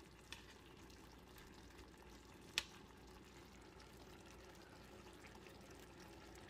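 Faint sizzling of soy sauce and onions simmering around fried milkfish in a frying pan. A single sharp click comes about two and a half seconds in, with a smaller one near the start.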